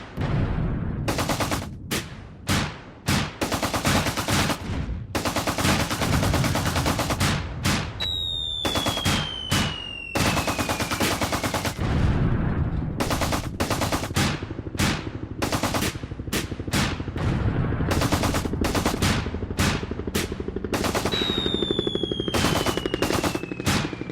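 Battle ambience of machine-gun fire in long rapid bursts mixed with single gunshots. Twice, a high whistle falls slowly in pitch over a few seconds.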